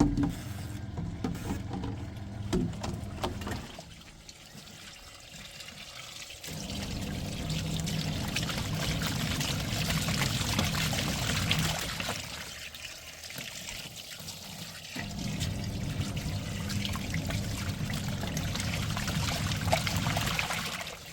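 Washing machine washing a load. Water sloshes and trickles while the motor hums in two long stretches with a pause between.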